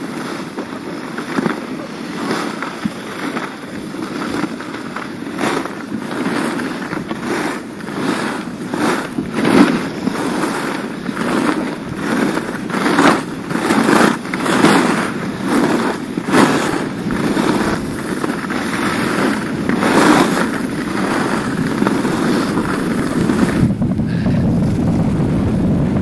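Skis scraping over groomed snow while skiing downhill, with a rhythmic scrape roughly every half second to second through the middle stretch as the skier turns. Steady wind rushes over the microphone.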